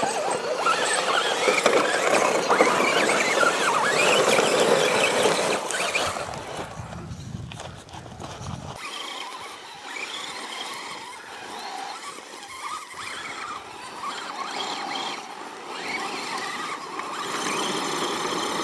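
Electric motors and geared drivetrains of Axial SCX10 scale RC crawler trucks whining as they climb a dirt slope, the pitch rising and falling with the throttle. It is loud for the first six seconds and fainter after about nine seconds.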